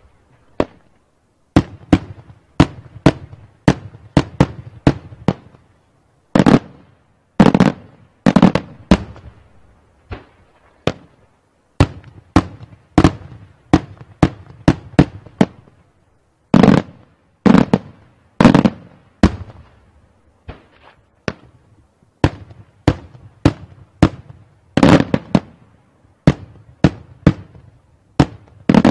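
Daytime aerial fireworks shells bursting overhead: a long, irregular string of sharp bangs, about one or two a second, each ringing off in a short echo, with several heavier reports among them.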